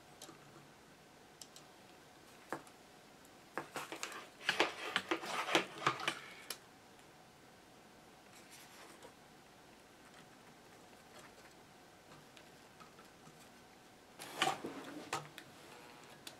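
Small metal clicks and scrapes of needle-nose pliers working bare bus wire into place on a radio chassis. They come in two short flurries, a longer one about four seconds in and a shorter one near the end.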